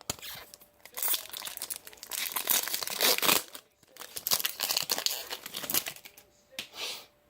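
Plastic wrapper of a hockey card pack crinkling and tearing as the pack is opened, in two spells of rustling.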